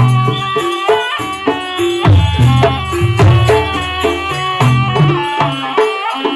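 Traditional East Javanese jaranan music: a melody of quick struck metallic notes over low drum beats, with a rattling percussion layer.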